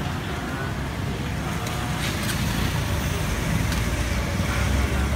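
Steady road-traffic rumble, growing louder in the second half as a vehicle passes, with faint voices and a few light clicks about two seconds in.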